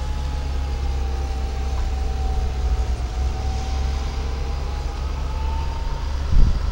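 Diesel engine of farm machinery running steadily, with a low rumble and a whine that dips slightly and then rises a little near the end.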